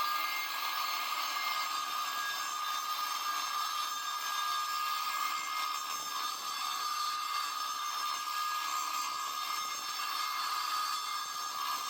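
DeWalt DWE490 9-inch angle grinder with a diamond disc, its motor running at a steady speed: an even whine with several high tones over a hiss.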